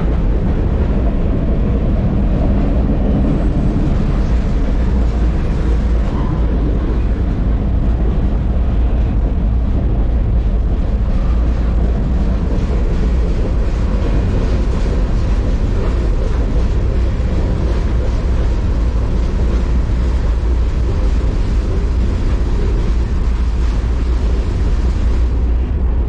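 Steady loud low rumble of a moving freight train heard from aboard, wheels and car body running on the rails without a break.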